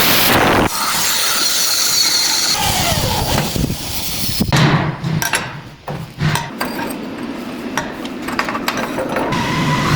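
Metalworking shop sounds: a steady, noisy power tool runs and winds down, then a series of sharp metal knocks and taps.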